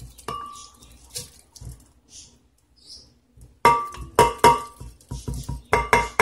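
Metal spoon clinking against a blender jar as soaked rice is spooned in: soft scrapes, then two quick sets of about three sharp ringing clinks, halfway through and near the end.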